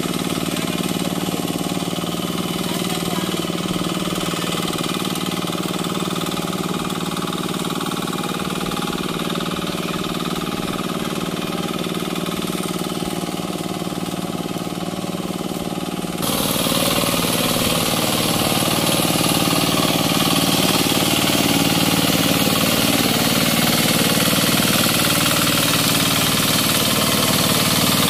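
Engine of a turtle-tiller hand tractor running steadily while it works through a flooded, muddy rice paddy. About sixteen seconds in, the sound suddenly becomes louder and brighter as it is heard from much closer.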